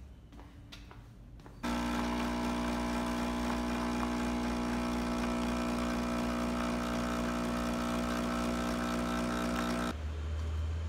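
Capsule coffee machine's pump buzzing steadily while it brews a cup of espresso. It starts abruptly about two seconds in and cuts off suddenly near the end.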